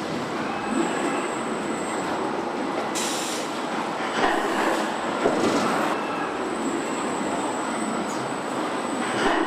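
Car assembly line machinery running: a dense steady mechanical clatter with a thin high whine. There is a short hiss about three seconds in and a few scattered clanks.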